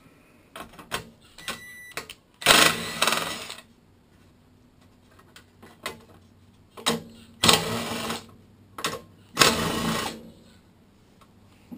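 Ratchet socket wrench ratcheting in about three bursts of rapid clicks, each about a second long, with a few single clicks and knocks in between, as the 5/16 bolts are loosened.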